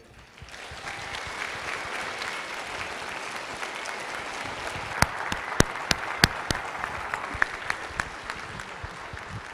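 Audience applauding, swelling within the first second and then holding steady, with a few sharper, louder claps close by about halfway through.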